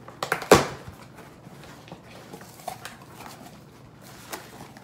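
Cardboard shipping box being opened by hand: flaps pulled back and contents handled, with a few sharp knocks in the first second, the loudest about half a second in, then quieter rustling and handling.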